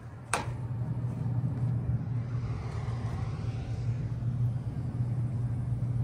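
Bard 2.5-ton wall-hung heat pump running in heat mode, a steady low hum from the unit through its grille. A single sharp click about a third of a second in.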